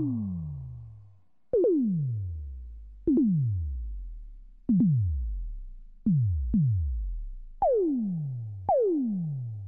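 Synthesized sci-fi laser shots. Each shot is a sharp click followed by an electronic tone that sweeps steeply down in pitch and fades over about a second. Seven shots fire at uneven intervals, two of them in quick succession about six seconds in.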